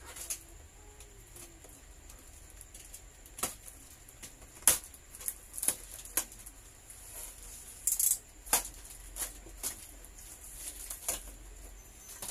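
Box cutter slicing through packing tape and cardboard, with irregular sharp clicks, scrapes and cardboard crackling as the flaps are pried and pulled open; the loudest snaps come about a third and about two-thirds of the way in.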